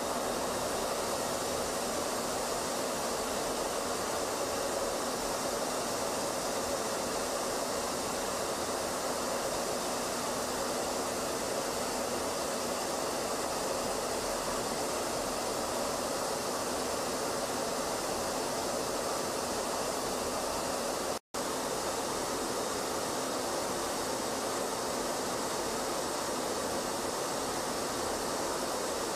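Steady rushing roar of aircraft in flight, jet engine and airflow noise with no changes in pitch. It drops out for an instant about 21 seconds in.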